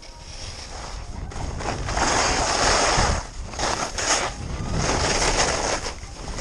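Skis scraping and hissing over packed snow through a run of turns, the hiss swelling and easing about every second. Wind rumbles steadily on the microphone underneath, and the whole grows louder over the first two seconds as speed builds.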